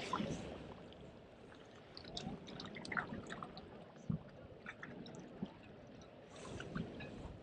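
Small waves lapping and splashing against jetty rocks, with irregular little splashes and clicks over a steady wash.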